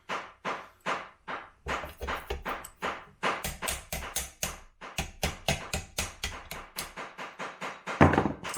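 Hammer striking a punch to drive out a ground-off Jeep Wrangler JK tailgate hinge pin: a steady run of sharp strikes, about three or four a second, with the loudest blow near the end.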